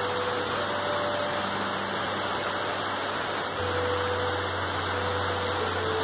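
Steady rain falling on the leaves of trees, an even hiss, with a faint low hum beneath it.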